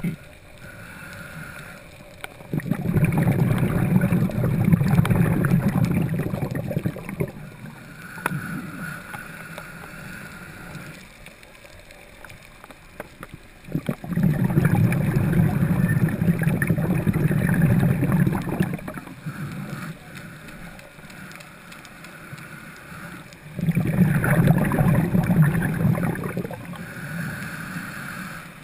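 Scuba diver breathing through a regulator, heard underwater: three long bubbling exhalations about ten seconds apart, with quieter inhalations between them that carry a faint high hiss.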